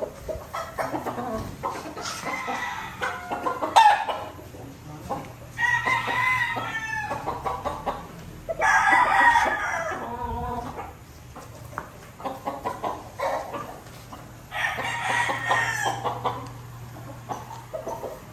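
Gamecocks crowing: three long crows, about a third of the way in, near the middle and near the end, with shorter calls between them.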